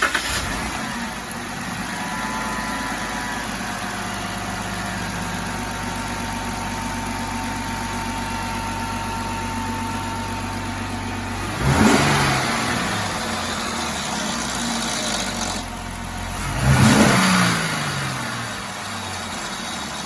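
2015 Jeep Wrangler JK's 3.6-litre Pentastar V6 starting and idling, then revved twice in quick blips before settling back to idle. The engine carries the rattle that the owner hears at start-up and above about 1500 rpm, which he locates near the cam phasers on both banks.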